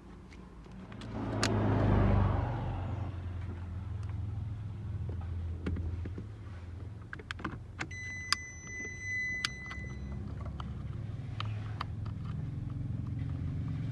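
Nissan Navara D40's engine starting about a second in and then running steadily, with scattered clicks and a steady high electronic beep from about eight seconds in lasting a second and a half.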